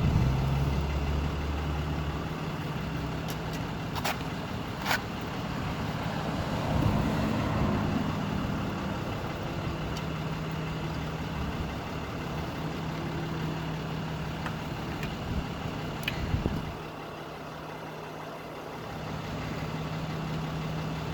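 Motor vehicle engine idling steadily, with a few short sharp clicks.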